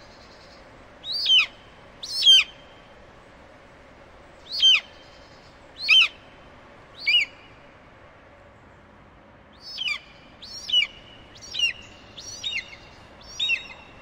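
A bird calling: ten short, high cries that each slide downward, each leaving a brief ringing tail, five spaced out in the first half and five in quicker succession near the end.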